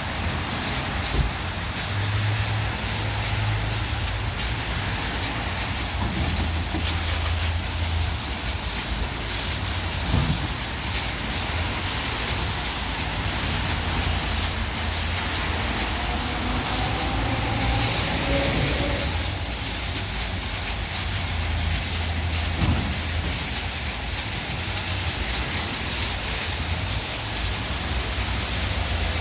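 WashTec SoftCare Pro rollover car wash gantry running over a car. There is a steady hiss of water spray and a low motor hum that shifts in level every few seconds.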